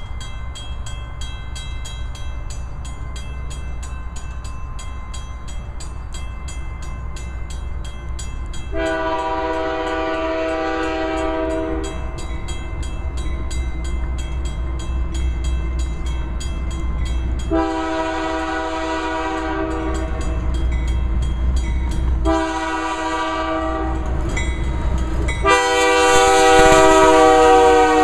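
Canadian Pacific GE AC4400CW diesel locomotive approaching with a steady low rumble and sounding its chord horn in a series of long blasts. The last blast, about two and a half seconds before the end, is the loudest as the train draws level.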